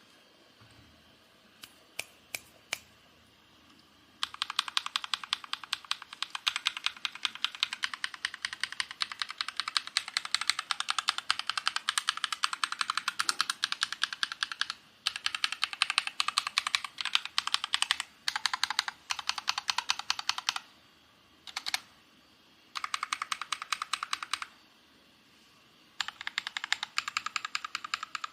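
Keychron K4 V2 mechanical keyboard with stock Akko Matcha Green switches being typed on: a few single key clicks, then about four seconds in fast continuous typing in long runs, broken by several short pauses.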